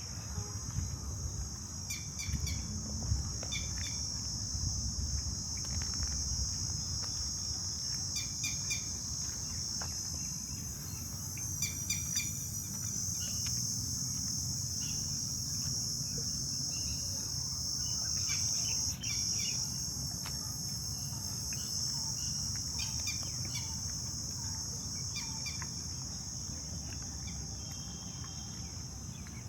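Steady high-pitched drone of insects, with short bird chirps now and then over a low background rumble.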